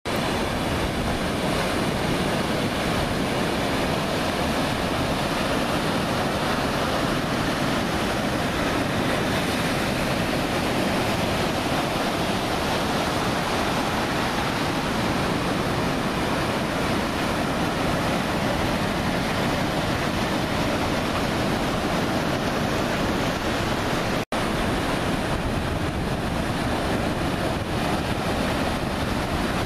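Steady noise of ocean surf, with wind rushing over the microphone. The sound cuts out for an instant about 24 seconds in.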